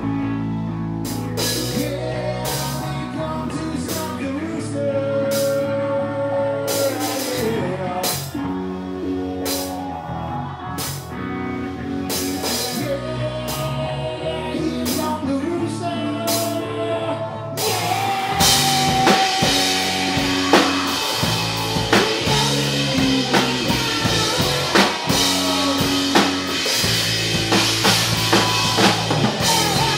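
Live rock band playing: electric guitar, bass guitar and drum kit with a lead singer. The first part is sparser, with separate drum hits, then a little over halfway through the full band comes in louder with cymbals ringing.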